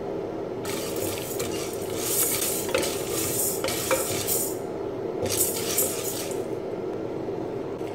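Dry moong dal being stirred and scraped with a spoon in the bottom of a pressure cooker while it dry-roasts. The scraping comes in three stretches, the middle one longest and loudest.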